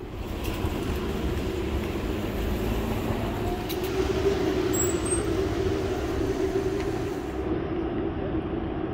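City street traffic: vehicles running along the road, with a steady low engine drone that swells a little in the middle.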